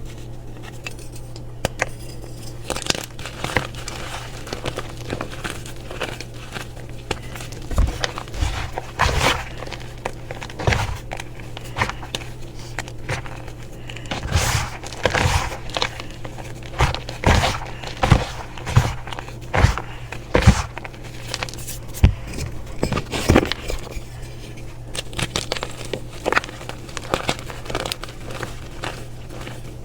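Crunchy dried ASMR reforms being crushed and crumbled by hand: irregular crackling and crunching, busiest in the middle, over a steady low hum.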